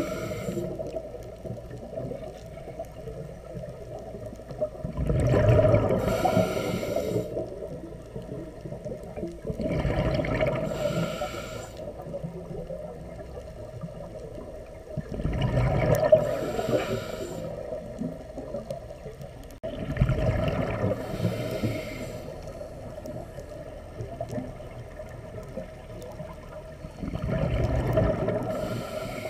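A scuba diver breathing through a regulator, heard underwater: bursts of exhaled bubbles gurgling about every five seconds, with quieter stretches between.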